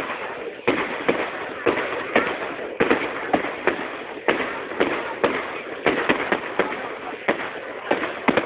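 Firework barrage going off: a quick run of sharp bangs, about two a second, over continuous crackling from the bursting shells.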